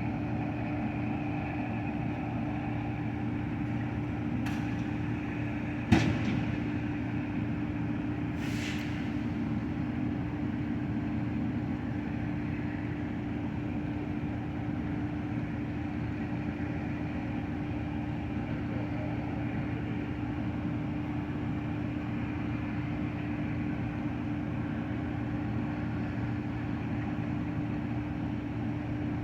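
Steady engine hum with a constant low drone, unchanged throughout, and one sharp knock about six seconds in.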